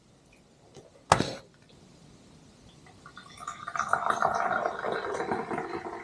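A single sharp tap about a second in, then, from about three seconds in, brewed coffee poured from a glass carafe into a small ceramic cup, a steady splashing stream lasting about three seconds.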